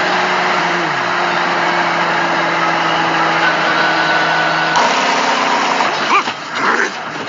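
A vehicle engine running steadily with a low hum, changing in character about five seconds in.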